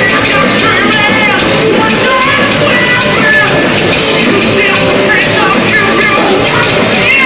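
Rock band playing live and loud: a singer's voice over electric guitar, bass and a drum kit with crashing cymbals, heard from the audience.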